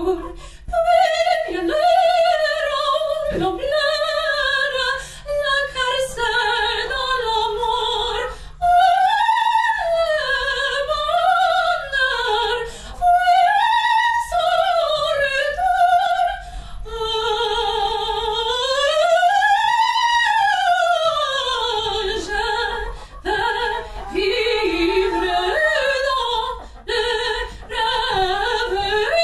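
Operatic singing: one high voice in long, wavering sung lines, with one long note sliding up and back down about two-thirds of the way through.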